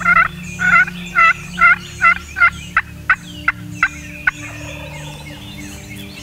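Series of about a dozen hen-turkey yelps from a hunter's turkey call, two to three a second, growing shorter and thinner before stopping a little past four seconds in.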